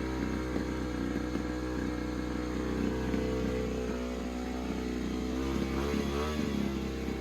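2006 Honda CRF250R's single-cylinder four-stroke engine running steadily after a cold start on fresh gasoline, with the stale fuel drained. Its pitch wavers briefly about six seconds in.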